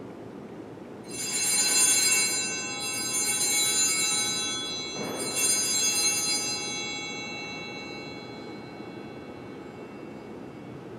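Altar bells rung three times, about one, three and five seconds in, each a clash of many high ringing tones that fades out by about eight seconds. They mark the elevation of the host at the consecration of the Mass.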